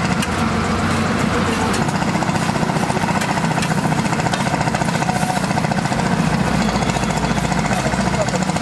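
Steel spatula rapidly chopping and scraping egg on a large iron tawa, a fast, continuous metal clatter, over sizzling and a steady low hum.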